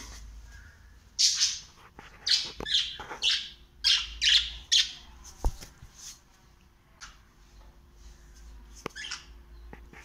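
Cockatiel giving a quick run of about eight loud, short, high-pitched calls, followed by a few fainter calls near the end.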